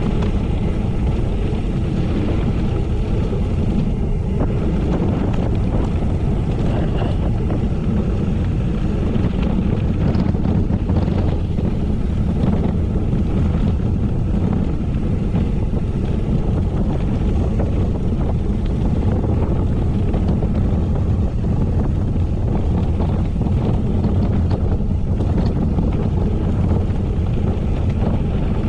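Wind buffeting the microphone of a camera carried on a moving bicycle, a steady low rumble.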